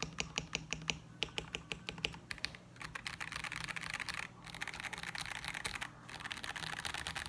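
Mechanical keyboard with unlubed Bulbasaur linear switches (polycarbonate housing, POM stem). Keys are pressed one at a time, about four or five a second, then typed fast in dense runs with two brief pauses.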